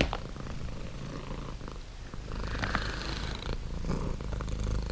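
Domestic cat purring steadily, close to the microphone, with some rustling of fur being stroked in the middle.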